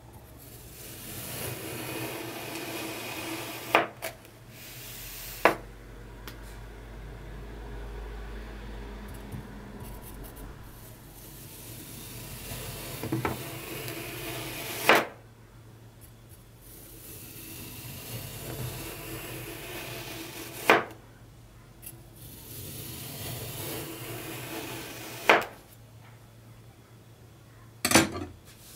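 A knife slicing through damp-packed kinetic sand, a soft gritty rasp lasting a few seconds per cut. About six sharp clicks break it up, one at the end of most cuts.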